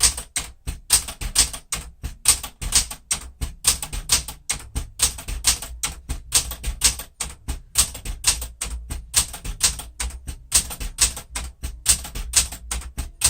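A 1972 Smith-Corona Classic 10 manual typewriter being typed on: a fast, fairly even run of sharp key strikes, typebars hitting the platen, about four or five a second, while the alphabet is typed out as a letter test.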